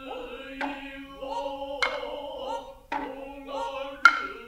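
Nō music: a steady, low unison chant with short rising calls, cut through by sharp hand-drum strikes about once a second, the loudest near the end.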